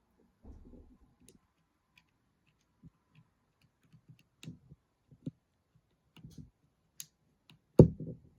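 Small 3D-printed plastic model parts clicking and tapping as they are handled and fitted together, at irregular intervals, with a louder knock near the end.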